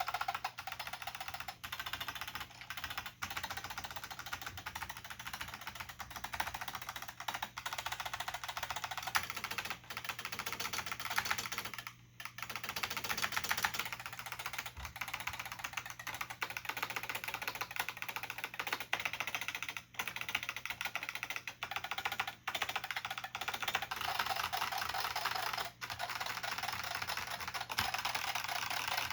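Fast, continuous typing on an IBM P70 keyboard with Alps plate-spring switches (SKCP family): a dense run of crisp key clicks and bottom-outs, broken by a few short pauses.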